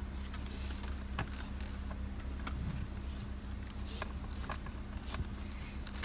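Faint rustling and a few light clicks as a car seat's top-tether strap and hook are handled, over a steady low hum.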